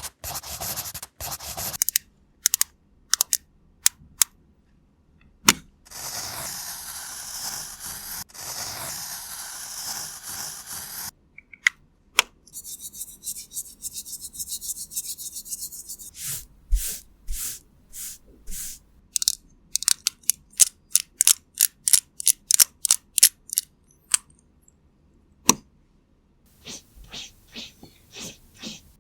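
Close-up makeup-application ASMR sounds. Scattered sharp clicks and taps and a few seconds of steady hiss are followed by a long run of quick, sharp taps, about three a second.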